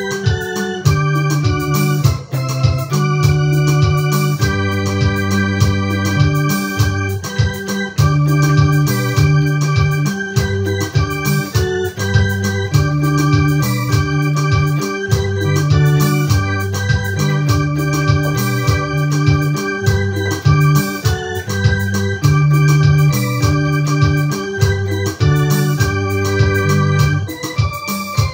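Electronic keyboard played by hand: a melody over held chords and low bass notes that change every second or two.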